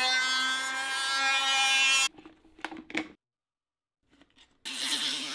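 High-speed rotary grinding tool cutting into the plastic shell of a ski boot: a steady whine that stops abruptly about two seconds in. A few light clicks follow, and a short noisy burst near the end.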